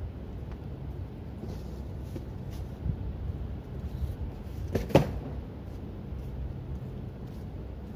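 A few light clicks, then one sharp clack about five seconds in, as a folded patio umbrella on a wooden pole is handled. Under it runs a steady low rumble.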